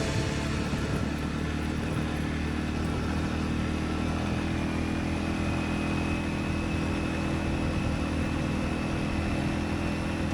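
Segway AT5 ATV engine running steadily while riding, an even low drone that holds one pitch with no revving.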